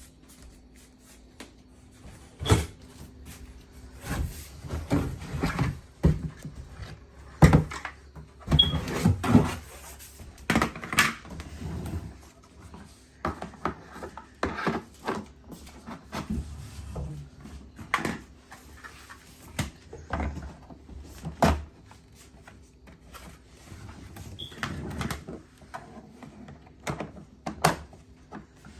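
Irregular knocks, clicks and rattles of hard plastic shop-vacuum parts being handled and fitted together, a few sharp knocks standing out.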